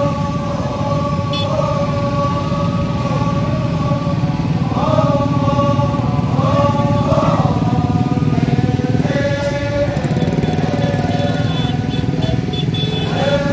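Many small motor scooters and motorcycles running past in a slow, dense convoy, a steady mass of engine noise. Music with a held, wavering pitch plays over it.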